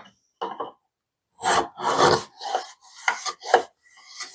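Wooden round-over hand plane pushed along the edge of a poplar board in a series of scraping strokes, the longest about a second and a half in, then several shorter ones. The blade is set shallow and is taking only light cuts.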